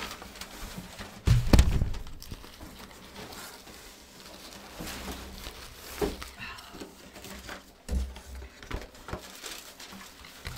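Handling noises as wigs and their packaging are moved about on a table: soft rustling and a few light knocks, with one heavy thump about a second and a half in.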